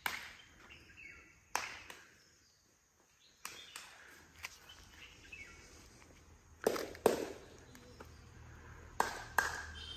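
Hand claps, about eight single loud claps a second or two apart, the last four louder and coming in two quick pairs.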